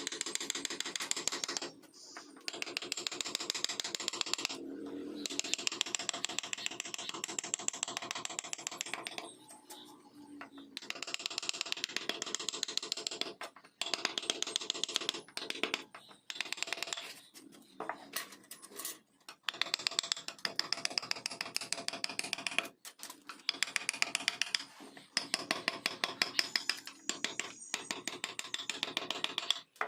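Carving tool scraping and cutting wood in runs of rapid scratchy strokes, each run lasting a few seconds, with short pauses between.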